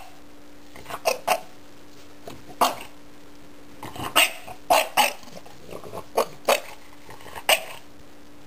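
French Bulldog barking in short single barks, about ten at irregular intervals.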